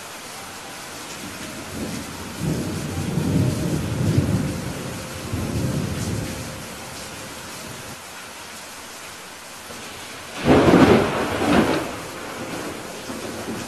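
Steady rain with thunder: a low rolling rumble from about two seconds in, then a louder, sharper thunderclap about ten seconds in.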